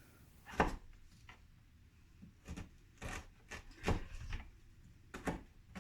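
Knife cutting fresh ginger on a wooden cutting board: a series of short, irregularly spaced knocks.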